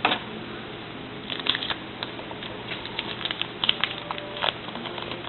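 Trading cards being handled and flipped through by hand: scattered soft clicks and light rustles of card stock at an uneven pace.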